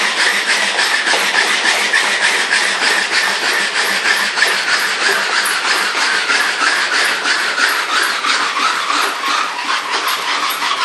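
Dog-powered wooden carpet mill running under a trotting dog: the carpet belt and rollers rattle in a fast, steady rhythm of about six clicks a second over a whir that sinks in pitch near the end as the belt slows a little.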